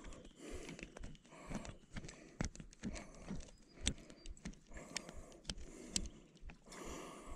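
Irregular small clicks and light knocks of hands working on a round baitcasting reel and its cork-handled rod, with a short rustle near the end.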